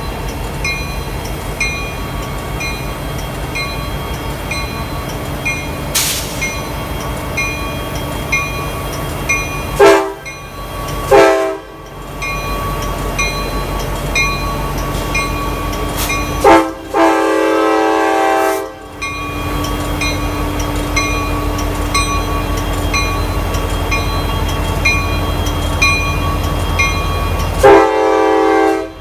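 Union Pacific SD70M locomotive's Nathan K5LA five-chime air horn sounding: two short blasts about a second apart some ten seconds in, a long blast of about two seconds a few seconds later, and another short blast near the end. Under it the locomotive's diesel engine runs, and a bell dings about twice a second.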